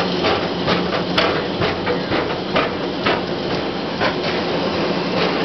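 Space Mountain roller coaster train rattling along its track, with irregular clicks and knocks over a steady low hum and rumble.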